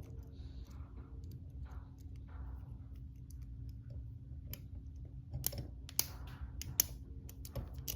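Small metal clicks and scrapes of lock picks working inside a Peerless handcuff's keyhole, picking its double lock. The clicks are sparse at first, and a few sharper ones come in the last few seconds.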